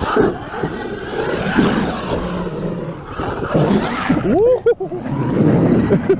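Large brushless electric RC monster truck on paddle tires driving through deep snow: motor whine and tyres churning snow. About four and a half seconds in, the motor revs up and back down in a quick rising and falling whine.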